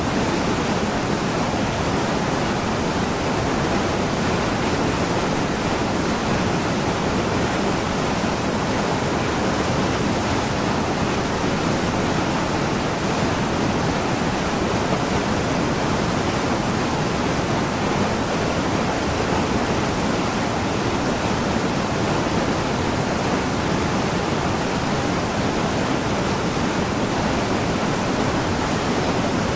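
Rushing water of a small waterfall and mountain stream running over rocks, a steady, unchanging wash.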